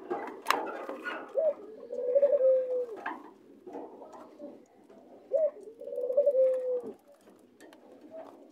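White doves cooing: two rolling coos a few seconds apart, each a short rising note followed by a long trilled note that falls away at the end, with light clicks of beaks pecking at sunflower seeds.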